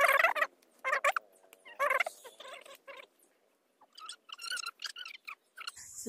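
Poultry calling: three loud warbling calls about a second apart, then a run of short, softer calls near the end.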